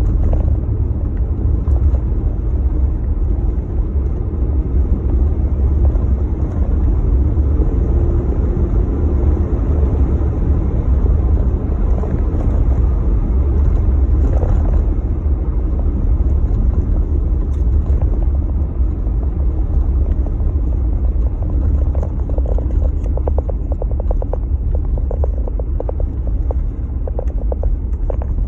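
Steady low rumble of a vehicle in motion, mixed with wind noise on the microphone. A fast, faint rattle comes in over the last several seconds.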